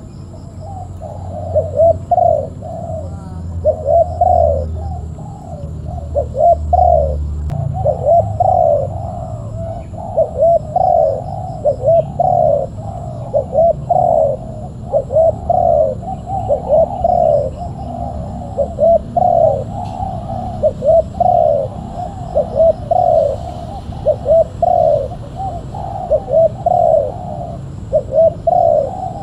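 Spotted dove (tekukur) cooing, phrase after phrase without a break.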